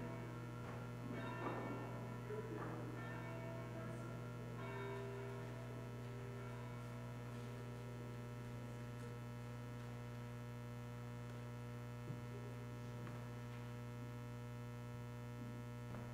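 Steady low electrical hum with many higher steady tones above it, and faint scattered sounds in the first few seconds.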